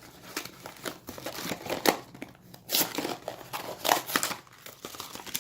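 Crinkling and tearing of packaging as a Funko Mystery Mini blind box and its foil bag are opened by hand, in irregular bursts.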